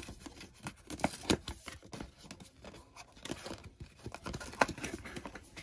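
Cardboard packaging of a GoPro Max camera being torn open by hand: the pull tab ripping along the box, with irregular clicks and rustles of card as the sleeve and inner flaps are folded back.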